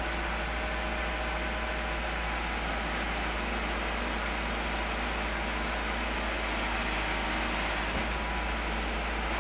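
Utility boom truck's engine idling steadily, a constant low rumble under a hiss.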